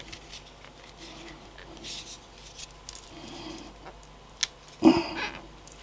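Parts of a helping-hands soldering stand being handled: scattered light clicks and brief rustles of the small metal pieces, with a louder knock about five seconds in.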